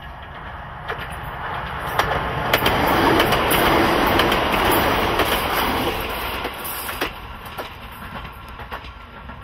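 Nagano Electric Railway stainless-steel electric train passing close by and running away along the track: wheels rumbling on the rails with sharp clacks over the rail joints. It is loudest a few seconds in and fades toward the end.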